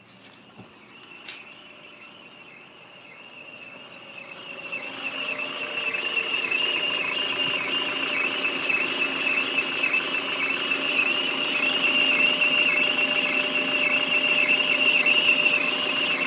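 Peugeot 307 2.0-litre petrol engine running cold with a high-pitched, pulsing whistling squeal, which grows much louder about four to six seconds in. The noise is taken for a failing tensioner pulley on the accessory belt.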